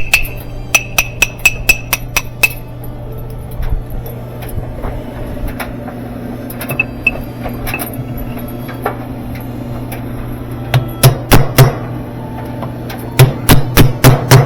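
Repeated hammer strikes with a ringing edge: a quick run of about eight blows in the first couple of seconds, then two more clusters of four or five heavier blows near the end.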